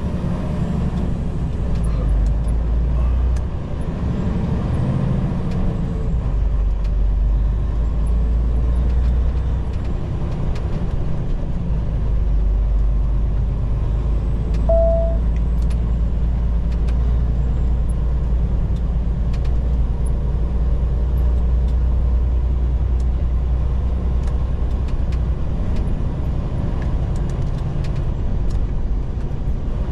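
Semi-truck engine and road noise heard from inside the cab, a steady low rumble. A short beep sounds about halfway through.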